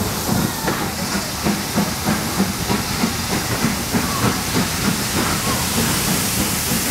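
Steam locomotive hissing steam steadily, with a dense patter of short irregular knocks underneath.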